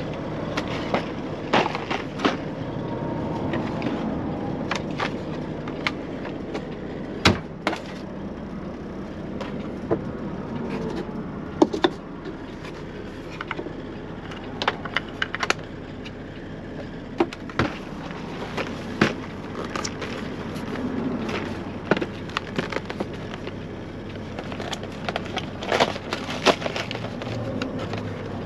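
Scattered plastic clicks, knocks and rustling as a single-serve pod coffee maker and its water tank are handled and a coffee bag is opened, over a steady low hum.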